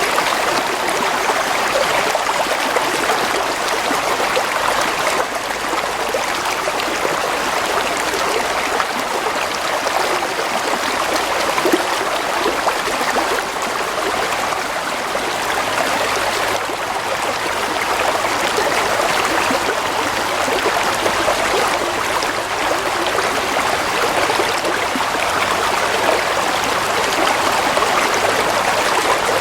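Stream of water flowing and trickling over stones, a steady, even rushing with small gurgles.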